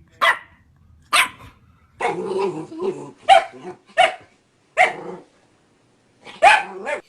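A dog barking in short, sharp barks, seven in all, with a longer, lower grumbling growl about two seconds in.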